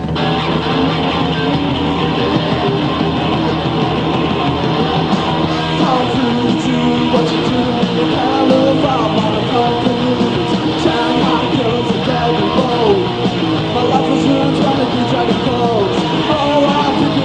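Rock song played by a guitar band: loud electric guitars, with a voice singing from about six seconds in.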